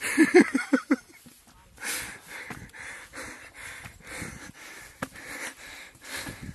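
A person panting hard from the exertion of climbing steep stairs, with short breaths about twice a second close to the microphone; the first second holds a voiced run of quick gasps.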